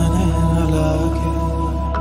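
Background music: a steady low drone under a slowly wavering melody, in a chant-like devotional style.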